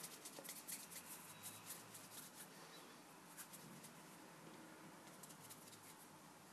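Faint handling sounds of hands working play dough on a ceramic tile surface: soft rubbing and a scatter of small ticks, thicker in the first half and sparser later.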